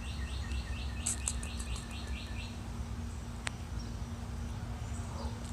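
A small bird calling: a quick series of short, falling notes, about four a second, that stops about two and a half seconds in.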